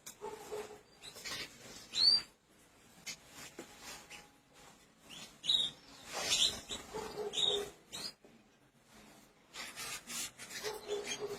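Canaries giving short, scattered chirping calls, some rising sharply in pitch, with a lull about three quarters of the way through.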